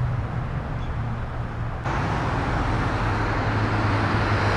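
Steady road traffic noise: a low rumble of passing cars with a constant low hum, becoming louder and brighter about two seconds in.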